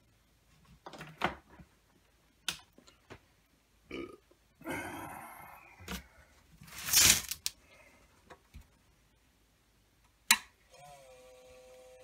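Handling knocks and a brief scraping rush as the amp is plugged in and moved, then a sharp click about ten seconds in as the Marshall MG100HDFX's newly replaced power switch is flipped on. Right after it the amp's cooling fan starts with a steady whine: a noisy fan, running after the switch repair.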